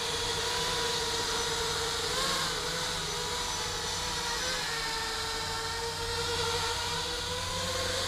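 Quadcopter with Happymodel SE2306 2700KV brushless motors and 5063 propellers on a 3S battery, hovering: a steady motor-and-propeller whine, not too noisy. Its pitch wavers a little with throttle corrections, about two seconds in, around five seconds and again near the end.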